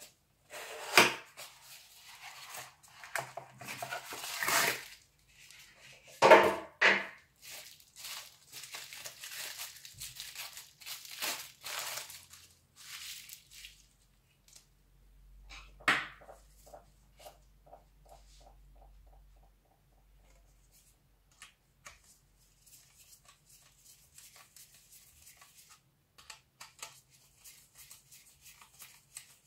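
Cardboard packaging being handled and opened, with sharp tearing and crumpling noises and thunks, then the crinkle of a bubble-wrap anti-static bag as a circuit board is slid out of it. About midway comes a sharp knock followed by a short run of faint, even ticks, and after that only faint small clicks.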